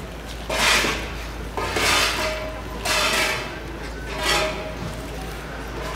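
Small terracotta flower pots being handled and scraped on cobblestones: four short scrapes about a second apart, each with a faint ring.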